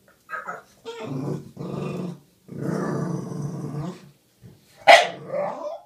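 A bulldog-type dog grumbling and growl-moaning in a run of drawn-out vocal sounds, then a sharp high yip about five seconds in, followed by a short whine. It is demanding, begging to have something fetched for it.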